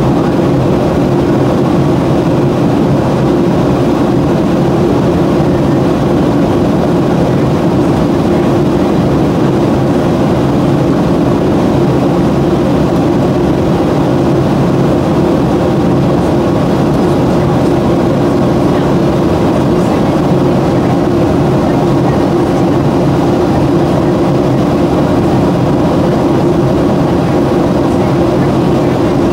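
Steady cabin noise of a Boeing 737 in flight: the engines and the airflow over the fuselage make a continuous low drone that does not change.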